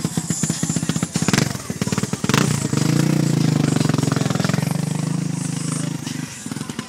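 Car engine running with a choppy, pulsing idle, then revved about two and a half seconds in and held at high revs, easing down near the end.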